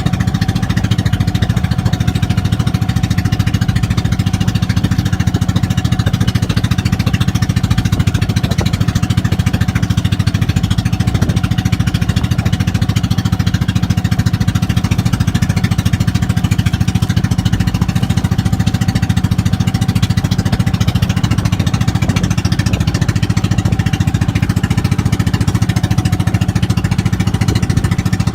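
Boat engine running steadily at a constant speed, with a fast, even chugging.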